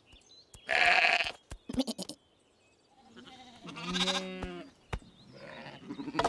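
Cartoon sheep bleating, with a short noisy burst about a second in, a few sharp clicks just before two seconds, and a longer bleat with a wavering pitch around four seconds.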